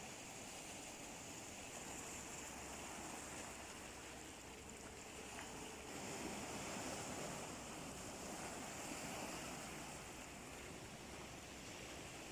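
Sea waves washing onto the shore: a steady rush of surf that swells and eases a few times, loudest about six seconds in.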